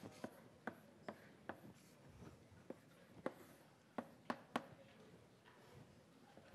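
Near silence in a lecture room, broken by about a dozen faint, irregular clicks and taps, the loudest few bunched together a little past the middle.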